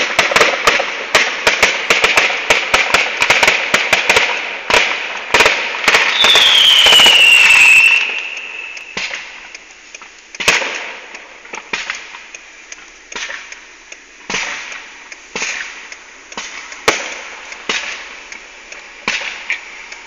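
Fireworks going off: a dense, rapid barrage of bangs and crackles for the first several seconds, with a whistle that falls in pitch about six seconds in, then single bangs about once a second.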